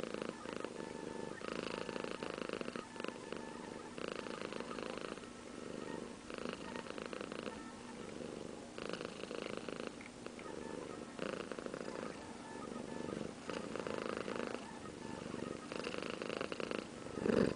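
Domestic cat purring steadily at close range, the purr swelling in a regular rhythm about every two and a half seconds. A brief bump near the end.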